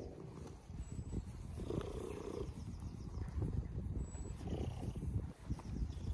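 Tabby cat purring close to the microphone, a steady low rumble of quick pulses.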